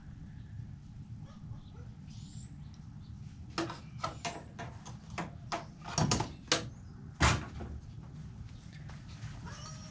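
A run of sharp clicks and knocks, the loudest about six and seven seconds in, as the parts of a disassembled pressure washer unloader valve are handled, over a steady low hum.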